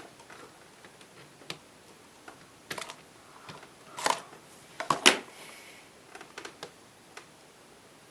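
Scattered small clicks and taps of hands handling the transistor radio and its parts, with a few quick clusters and the loudest two clicks about a second apart near the middle.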